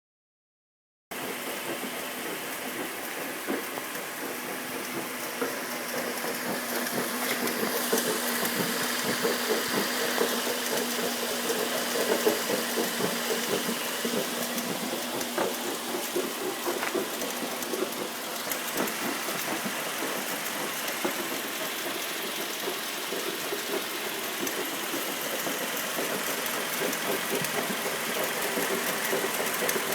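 A car's CVT transmission and engine running as a steady, noisy drone with a faint steady tone that fades out about two thirds of the way through. This is the abnormal noise the CVT makes while driving.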